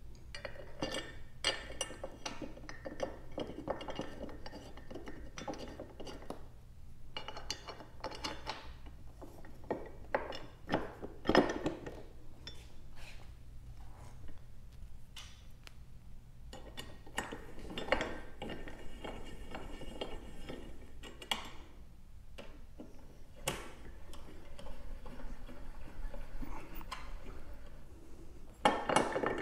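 Scattered light clinks and rattles of metal hardware as a metal backrest side arm and its long bolts are handled and loosely fitted to a motorcycle's rear frame, with a few sharper knocks. A faint low hum runs underneath.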